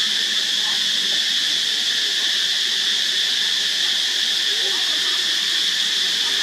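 Steady, high-pitched insect chorus: an unbroken shrill hiss that holds one level throughout.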